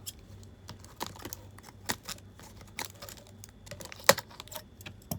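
Irregular light clicks and taps of plastic takeaway sushi containers and sauce packets being handled, with a sharper click about four seconds in.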